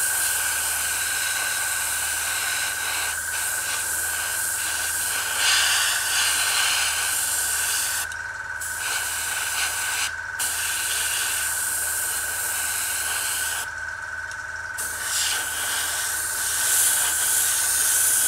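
Airbrush hissing steadily as it sprays paint, the hiss breaking off briefly three times in the second half, over the steady whine and low pulsing hum of the hobby air compressor running.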